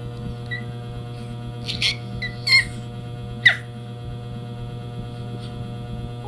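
A cat making three short, high, squeaky calls close together, the last one falling in pitch, over a steady low hum.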